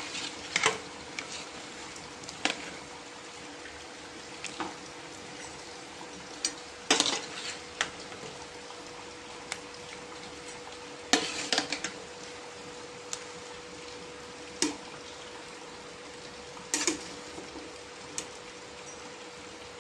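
Metal ladle clinking and scraping against the inside of a stainless steel pot of boiling fish, in irregular sharp clinks every second or two with a cluster near the middle, over the steady hiss of the pot at a rolling boil.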